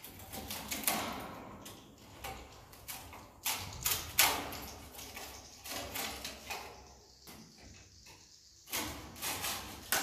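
A long pole-mounted tool scraping and knocking against wooden ceiling beams as swiftlet nests are pried loose, in irregular strokes. The loudest clusters come about four seconds in and again near the end.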